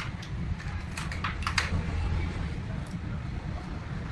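A steady low hum with a few light, sharp clicks and taps, bunched together about a second in.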